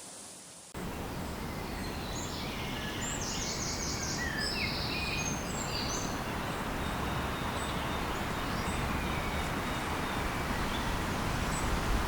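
Outdoor nature ambience: a steady rushing hiss with a bird chirping and trilling in quick high notes between about two and six seconds in.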